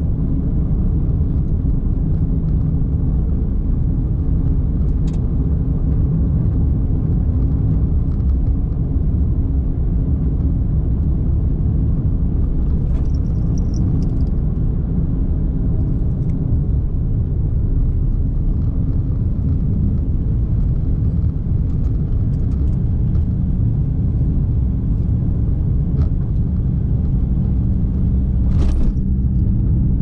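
Car driving along a road: a steady low drone of engine and tyre noise, with scattered faint clicks and a short hiss about a second before the end.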